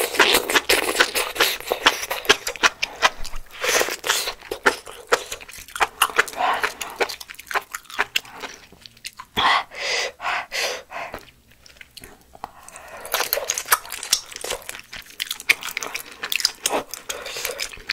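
Close-miked eating of malatang: noodles slurped from a ladle, then wet chewing with many small mouth clicks and crunches. The chewing goes on in spells, busiest at the start and again near the end.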